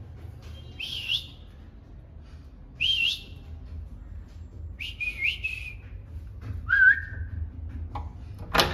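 A man whistling short rising whistles, about five spaced a second or two apart, to call his dog; the last one is lower in pitch.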